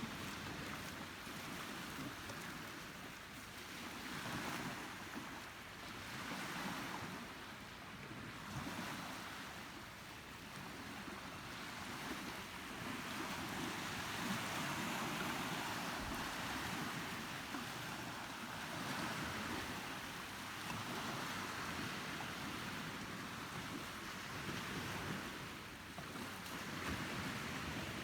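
Sea waves washing in, the rush of water swelling and easing every few seconds, with wind noise on the microphone.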